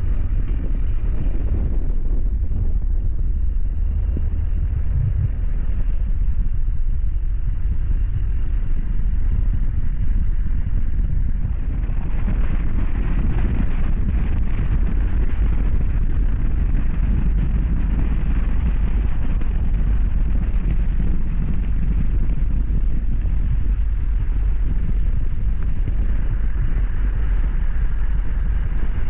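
Steady low rumble of a vehicle driving along a road, growing fuller and louder in the upper range about twelve seconds in.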